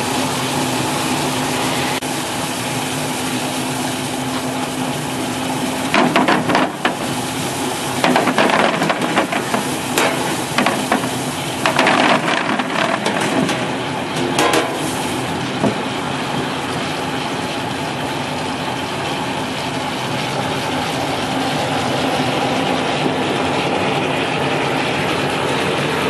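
QX-608 brush potato washing and peeling machine running: a steady motor hum under the hiss of the water spray and potatoes tumbling on the rotating brush rollers. Between about six and fifteen seconds in come bursts of potatoes knocking and clattering as they are discharged down the chute into a plastic crate.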